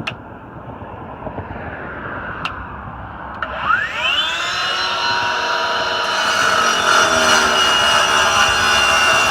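DeWalt DCS690 FLEXVOLT 60V cordless brushless 9-inch concrete saw pulled to speed: a whine rises steeply about four seconds in, after a few light clicks. It settles into a steady high motor-and-blade tone that grows louder and harsher in the last few seconds as the blade bites into concrete.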